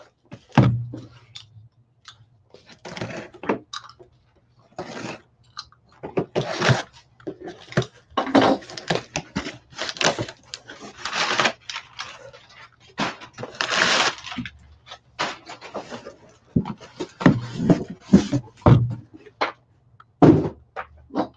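Cardboard shipping box being opened and unpacked by hand: repeated rustling and scraping of cardboard and packing material, some short and some lasting about a second, over a low steady hum.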